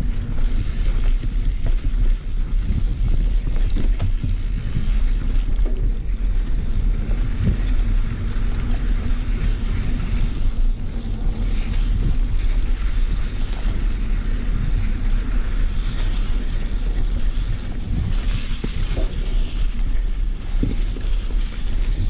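Riding noise from a 2022 Specialized Enduro Comp mountain bike going fast down a dirt trail: steady rush of wind on the camera microphone over the rolling of the tyres, with scattered knocks and rattles from the bike over bumps.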